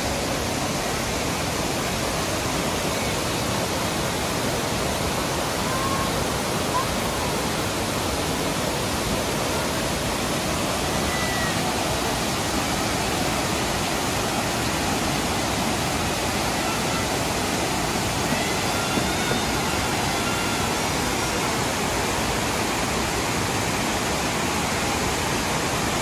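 Tomara Waterfall's many cascades pouring over mossy rock ledges: a steady, dense rush of falling water.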